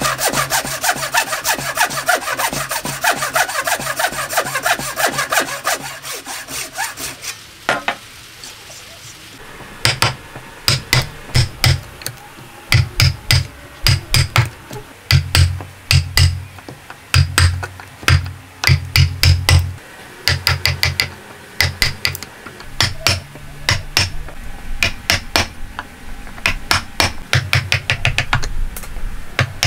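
Hand saw cutting through hardwood in quick, even back-and-forth strokes for about seven seconds. After a short pause, a chisel is driven into the wood with sharp strikes in short runs of two to four, chopping out the waste of the dovetail sockets.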